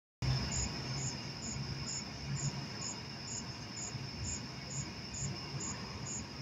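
Crickets chirping: evenly spaced high chirps about twice a second over a steady high trill, cutting in just after the start.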